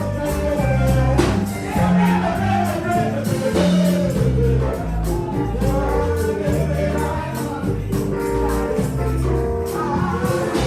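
Gospel music: voices singing over a bass line that changes note every second or so, with a steady beat of percussion, tambourine-like.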